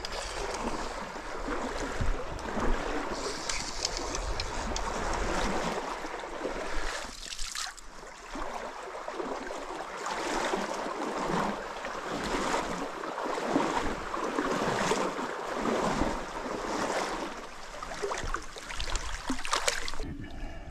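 Shallow creek water sloshing and splashing as someone wades through it, in uneven surges with frequent short louder splashes.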